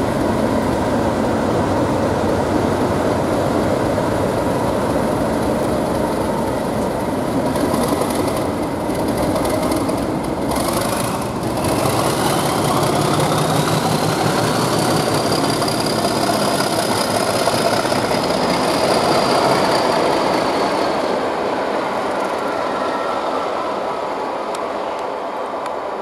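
Class 37 diesel-electric locomotive's English Electric V12 engine under power as it pulls a train away. A turbocharger whistle rises in pitch about ten seconds in and holds high. The sound eases off near the end as the train draws away.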